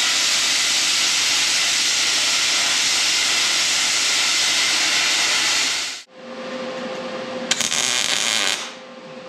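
Plasma cutter cutting thick steel plate: a loud, steady hiss that cuts off sharply about six seconds in. A quieter hiss with a steady hum follows for a couple of seconds, with a single click partway through.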